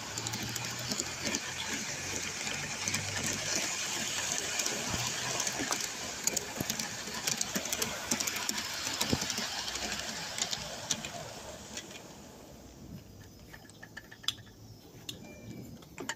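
Live-steam garden-railway train running, heard from aboard: a rapid, steady clatter of small wheels and couplings on the track that dies down about twelve seconds in, leaving a few faint ticks.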